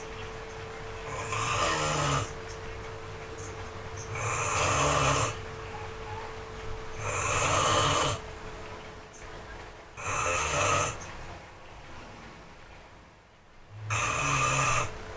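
A person snoring in sleep, five snores about three seconds apart, each lasting about a second.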